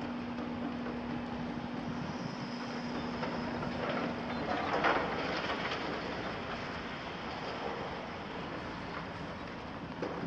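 Excavators working on a demolition site: a steady diesel engine drone with a hum that stops about halfway through, and a louder rattling burst from the machines and rubble around the middle.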